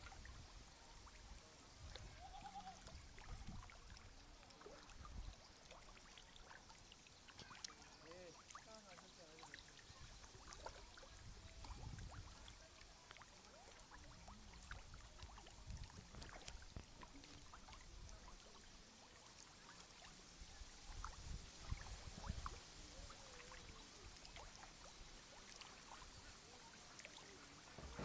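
Near silence: faint outdoor ambience with faint water sounds and occasional low rumbles.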